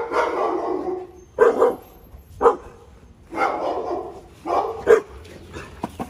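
Pit bulls barking: about five loud barks in a few seconds, the first and fourth drawn out and the rest short.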